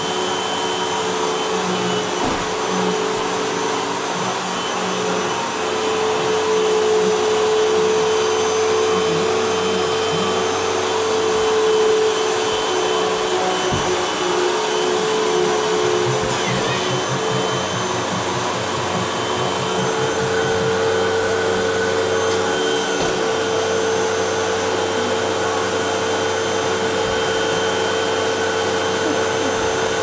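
Vacuum cleaner running steadily on a rug, its motor whine shifting slightly in pitch a couple of times.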